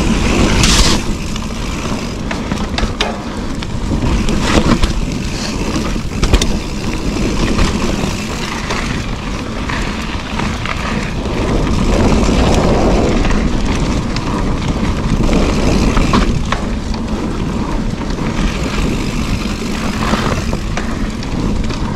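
Mountain bike descending a dirt singletrack: knobby tyres rolling over dirt and small stones, with frequent rattles and clicks from the bike, over a steady low rumble of wind on the microphone.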